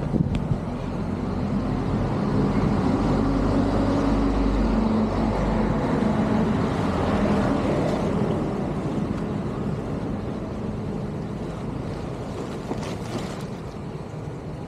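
A motor engine hums over a steady rushing noise, growing louder over the first few seconds and then slowly fading.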